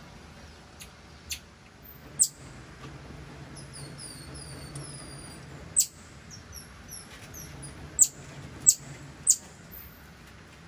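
Cotton-top tamarins calling with high, thin chirps: a run of short falling chirps through the middle, and several sharp, loud squeaks, three in quick succession near the end, over a low steady hum.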